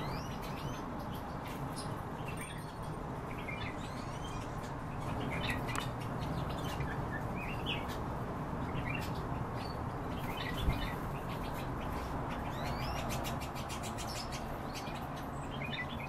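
Bee-eaters giving short, scattered chirping calls, some sweeping upward in pitch, over a steady low hum, with a single brief knock about two-thirds of the way through.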